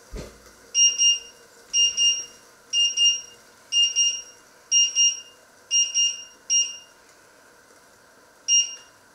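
A glass-top electric hob's control panel beeping: a short double beep about once a second, seven times, stopping about seven seconds in, then one more double beep as a finger presses its touch controls. A thump right at the start.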